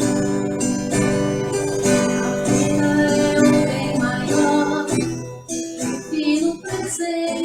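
Acoustic guitar music played with strummed chords, with what may be a faint singing voice; it thins out to lighter picking after about five seconds.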